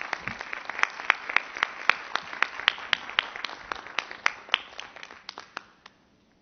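Applause from a small group, with a few sharp individual claps standing out. It thins out and dies away about six seconds in.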